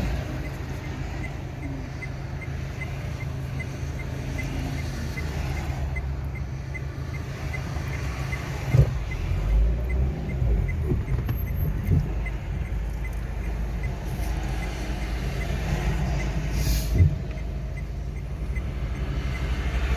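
Steady low rumble, with three or four short thumps in the second half and faint rapid ticking in the first half.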